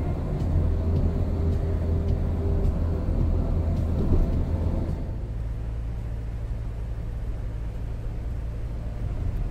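Steady low rumble of tyres and engine heard inside a car's cabin at expressway speed. The drone drops in level and changes character about halfway through.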